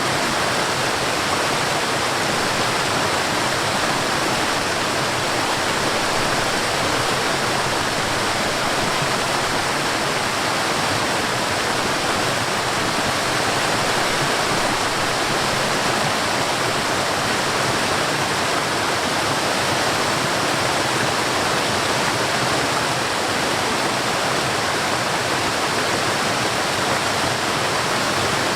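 Forest waterfall: steady, unbroken rush of falling water, even hiss strongest in the mid and upper range.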